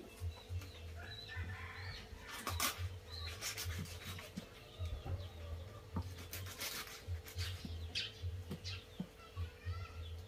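Knife scraping and cutting on a wooden chopping block as a small chicken carcass is skinned and cleaned, in short irregular strokes. Birds chirp faintly in the background over a faint steady hum.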